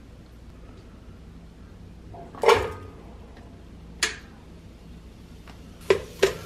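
Plastic container and plastic rice paddle clattering against an Aroma rice cooker's inner pot as diced shrimp, sausage and onion are tipped in. There are a few sharp knocks: the loudest about two and a half seconds in, another at about four seconds, and two quick ones near the end, over a low steady hum.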